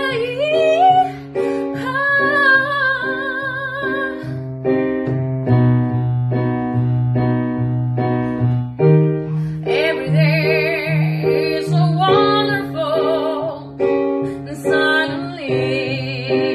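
A woman singing while accompanying herself on an electronic keyboard with piano chords. About four seconds in, the voice stops and the keyboard plays alone for roughly five seconds, then the singing comes back in over the chords.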